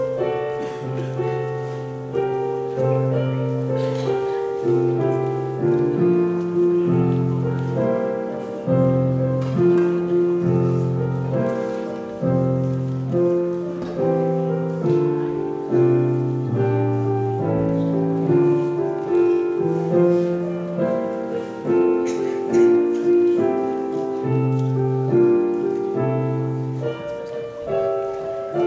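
Piano music: slow chords over a stepping bass line, each chord struck and then fading.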